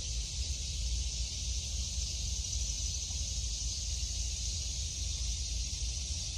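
Steady outdoor ambience: an even high hiss with a low wind rumble on the microphone.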